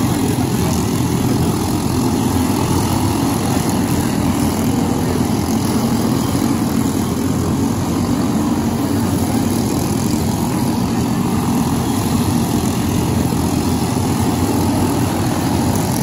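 Go-kart engines running, a steady dense drone that holds without clear rises or falls.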